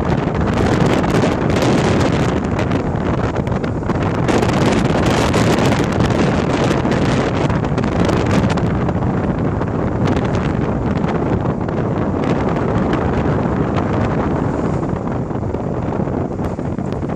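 Wind buffeting the microphone and road noise inside a car driving along a city street, a steady rush with rapid flutter. The rush softens near the end.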